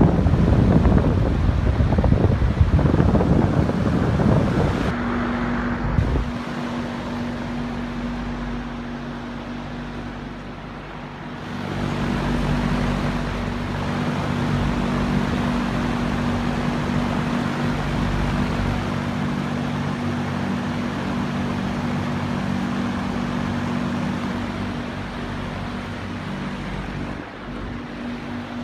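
20-inch Vernco box fan running on high speed: a steady rush of air with the motor's steady electrical hum. For the first few seconds the airflow buffets the microphone. From about five seconds in, the hum holds as a steady tone.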